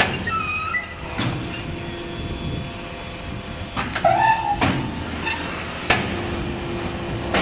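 HBY4-10 automatic compressed earth brick machine running through its pressing cycle: a steady running hum broken by sharp metal knocks and clanks of the moving mould frame, with short squeals near the start and about four seconds in.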